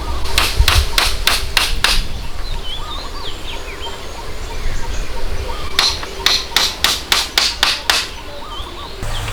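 Two bursts of rapid hand-tool strikes, about four blows a second: one near the start and one about six seconds in. Small birds chirp faintly between them.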